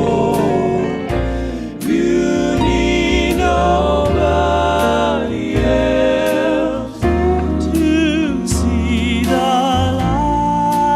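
Male gospel quartet singing in four-part harmony, with long held, wavering notes over a low bass line and a steady beat.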